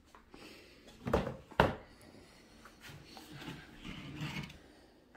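Two sharp knocks about half a second apart, followed by faint handling noise, as a canvas painting is taken off and handled on a tabletop easel.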